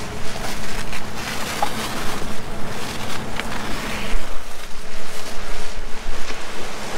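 Wind blowing on the microphone at a beach: a steady rushing noise that swells and dips in gusts, with a faint steady hum underneath.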